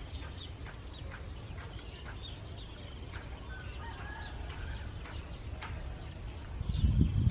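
Faint chicken clucking and small bird calls over a low background hum, then a loud low rumble starting near the end.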